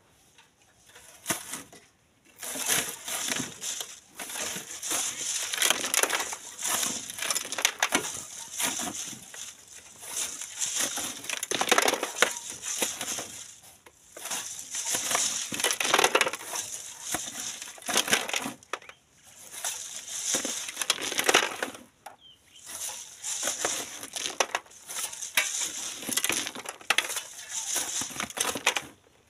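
Sand and gravel rattling and scraping across the wire mesh of a hand sieve as it is shaken over a wheelbarrow, in spells of a few seconds broken by short pauses.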